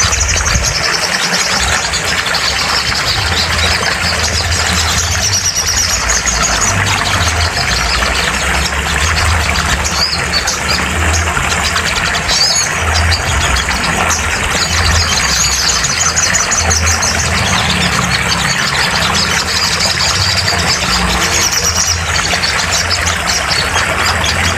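Sogon bird song: bursts of high, rapid chattering calls, a second or two each and several times over, above a steady, loud low hum.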